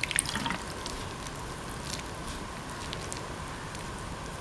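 A hand mixing water into flour in a bowl to form dough: soft squishing and crackling, busiest in the first half-second, then faint scattered ticks over a steady background hiss.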